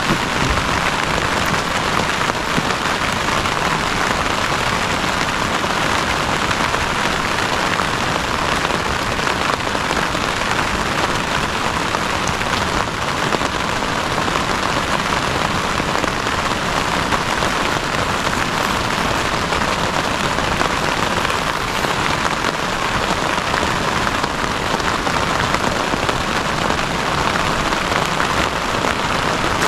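Heavy rain falling steadily, a dense, even hiss of many drops striking a surface.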